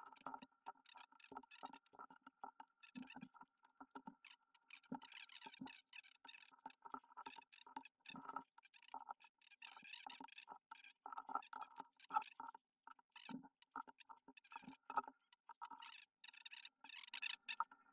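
Faint, irregular soft taps and clicks of liquorice allsorts sweets being picked up and set down by hand on a tabletop.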